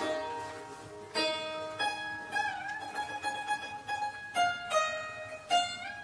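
Chaozhou zheng, a Chinese plucked zither, played solo: a sweep across the strings rings away, then single plucked notes follow at a slow pace. About halfway through, one note is bent and wavered in pitch by pressing the string.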